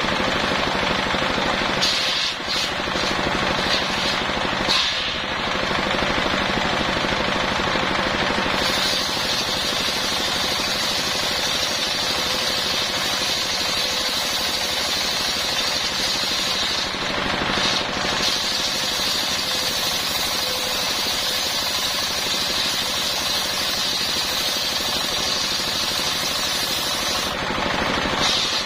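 Circular saw ripping lengthwise through a coconut palm trunk, a loud continuous mechanical run with a high cutting hiss that eases off briefly a few times, about 2, 5 and 17 seconds in.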